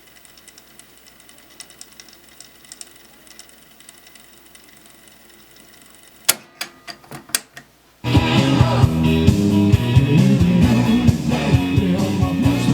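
Pioneer CT-F750 cassette deck's transport controls being worked: faint mechanical ticking, then a quick run of four or five sharp clicks, after which rock music playback from the tape starts abruptly about eight seconds in.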